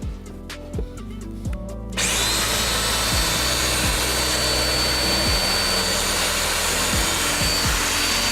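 Festool DF 500 DOMINO joiner started up about two seconds in, its motor running steadily with a high whine and a loud rushing noise while it routes a mortise for a KD connector.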